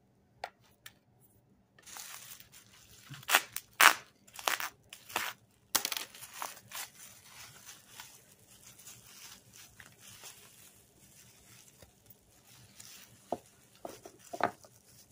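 Plastic bubble wrap being unwrapped by hand, crinkling and rustling. There are several sharp crackles about three to six seconds in, and a couple more near the end.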